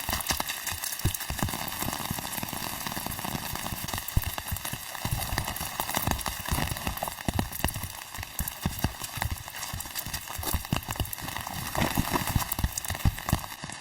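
Irregular knocking and tapping, several knocks a second, over a steady hiss.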